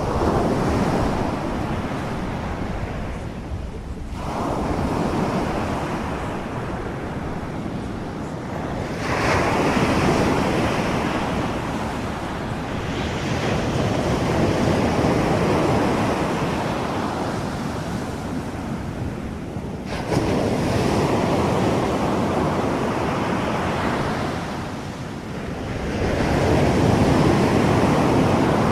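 Ocean surf: waves washing in and drawing back, the rushing sound swelling and fading about every four to six seconds.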